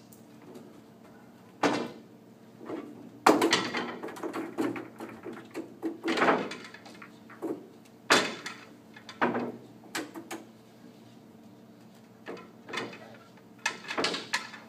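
Pool balls being gathered on the table and packed into a rack: a series of irregular hard clacks and rattles as the balls knock together.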